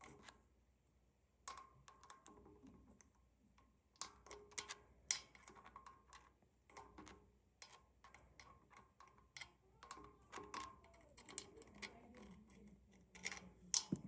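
Irregular small metal clicks and scrapes of a dime being worked in the oscillation slot of a 1940s Robbins & Myers table fan, with the fan switched off. The part is tight and slow to turn. The clicks start about a second and a half in, some with a faint ring, and the loudest comes near the end.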